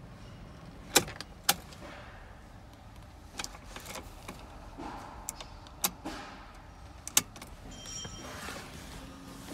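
Ignition key being worked in a Citroen Jumper's ignition lock: several sharp clicks with lighter rattling of the key ring between them, and a brief faint high tone near the end.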